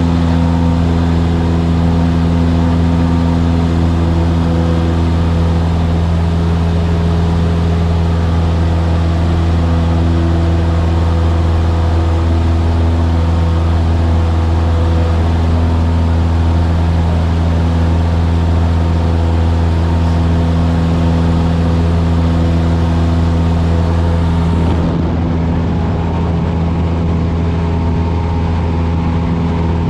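Cessna 172's piston engine and propeller droning steadily in cruise, heard from inside the cabin. About 25 s in, the sound gets slightly quieter and duller.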